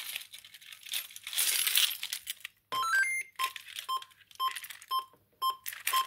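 Keys jingling on a keyring holding an alarm key fob, then the ADE Logic 6 alarm panel's internal speaker beeping: a quick rising run of four electronic notes about three seconds in, followed by short single beeps at one pitch about twice a second.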